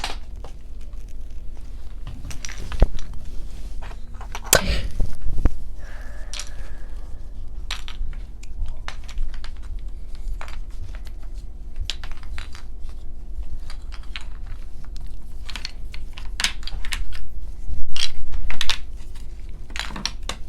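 Small wooden jigsaw puzzle pieces clicking and clattering against one another as they are handled and put into their storage bag, in irregular bursts with some rustling.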